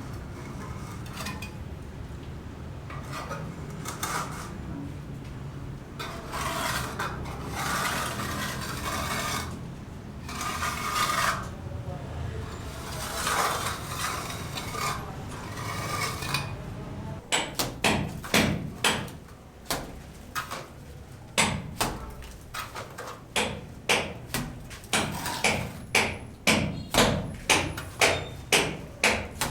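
Rasping, scraping strokes at first, then a run of sharp hammer blows, about one to two a second, growing faster and louder towards the end.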